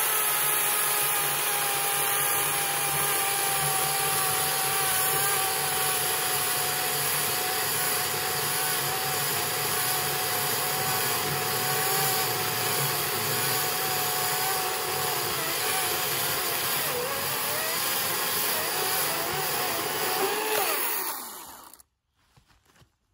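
EGO 18-inch cordless electric chainsaw cutting through a fallen tree trunk about 16 inches across: a steady motor whine that sinks slightly in pitch as the chain works through the wood. Near the end the pitch wavers and rises, then the saw stops about 21 seconds in.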